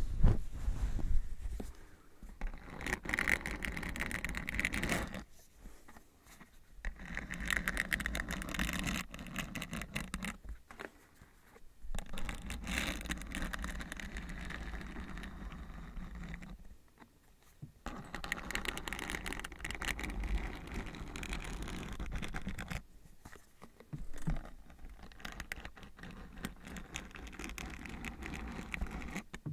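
Close-miked ASMR brushing and scratching, in about five bouts of a few seconds each with short pauses between them.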